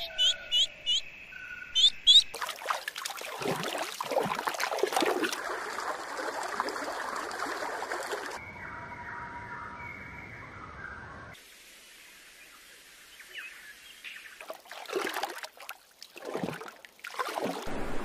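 Outdoor nature sounds changing every few seconds: water trickling and splashing, short high bird chirps near the start, and a quieter stretch of faint bird calls in the middle.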